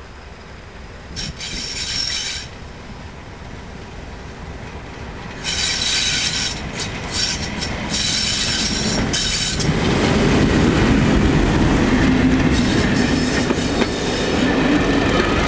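Class 37 diesel locomotive approaching on the line, with several short high-pitched bursts in the first half. About two-thirds of the way in it passes close by, its English Electric V12 engine loud, and the coaches' wheels follow with a clickety-clack.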